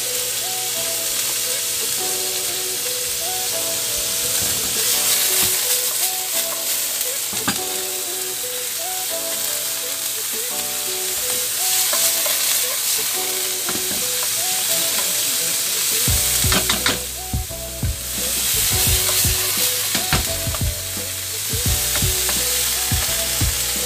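Diced chicken and carrots sizzling in hot oil in a nonstick frying pan, with a wooden spatula scraping and knocking against the pan as they are stirred. The knocks come thicker in the last third.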